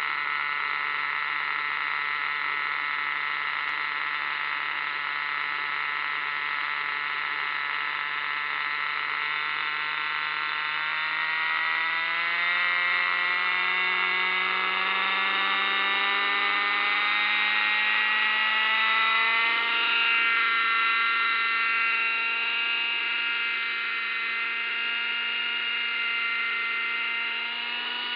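Small model-helicopter engine of a vintage GMP Rebel RC helicopter running with its rotor turning, a steady buzzing drone. From about ten seconds in the pitch rises steadily for about ten seconds as it is throttled up and the rotor spools up, then holds at the higher speed, dipping briefly near the end.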